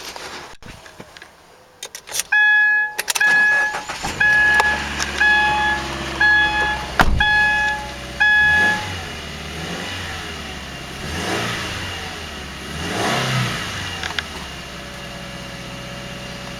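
2014 Subaru Impreza's flat-four engine heard from inside the cabin. It starts, with about seven warning-chime beeps over the first several seconds. It is then revved briefly twice and settles into a steady idle.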